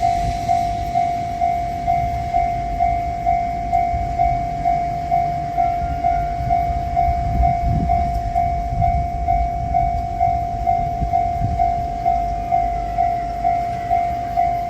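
Japanese railroad crossing alarm ringing its repeated clang, about two strikes a second, with a low rumbling underneath that swells around the middle.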